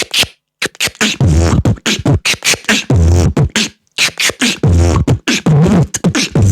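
Beatboxer imitating frog croaks with his mouth and throat: sharp clicks mixed with short, throaty croaks in quick succession.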